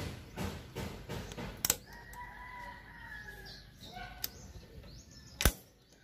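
Metal clicks and light clatter as a new gear shift spindle is worked back into a Honda XRM's engine case, ending in a sharp metallic click near the end. A faint drawn-out call sounds in the background about two seconds in.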